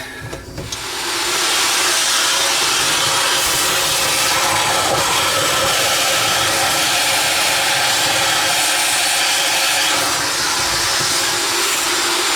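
Shop vacuum starting up about a second in and running steadily, sucking debris out of a dishwasher's drain sump and waste trap, the debris behind the dishwasher's grinding noise.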